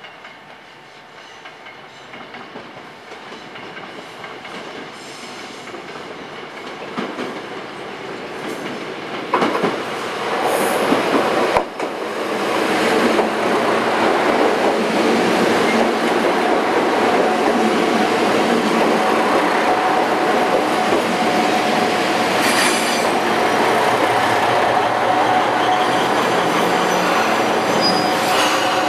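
KTR001-series Tango Explorer diesel multiple unit pulling into the station, growing steadily louder as it comes alongside the platform, with wheels on the rails and a single sharp knock a little before halfway. Through the second half it runs on at a steady level with a steady whine as it slows.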